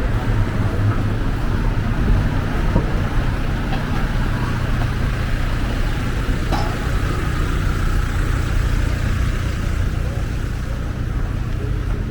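Busy street traffic: a steady rumble of passing road vehicles with a faint murmur of voices.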